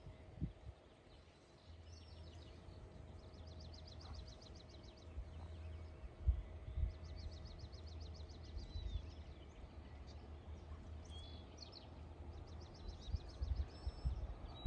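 A small bird singing a high, rapid trill of evenly spaced notes, about a second long, repeated several times a few seconds apart, over a low steady hum.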